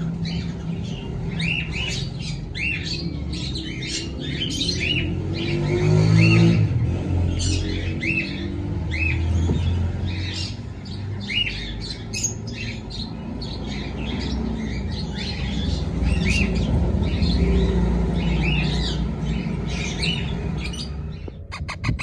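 Caged parrots squawking: short, harsh calls repeated about every half-second, over a steady low rumble.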